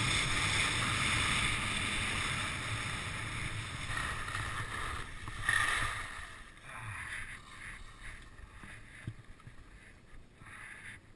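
Wind rushing over a helmet camera's microphone and skis scraping on groomed spring snow during a downhill run. The noise is steady and loud, swells briefly about five seconds in, then dies down after about six seconds to quieter, intermittent rushes.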